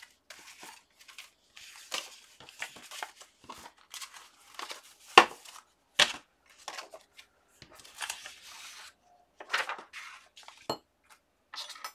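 Cardstock tags being shuffled, slid and stacked by hand, rustling in short bursts. Two sharp clacks about five and six seconds in, as a stack of tags is set into a plastic basket.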